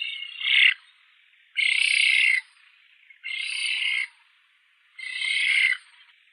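An animal calling four times: short, harsh, rasping calls, each under a second, with brief pauses between them.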